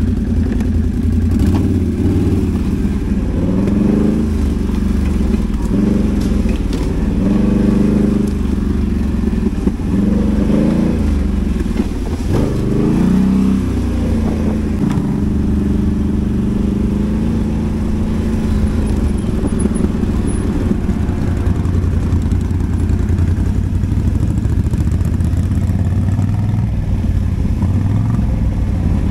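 ATV engine running, revved up and down again and again in the first half, then running more steadily.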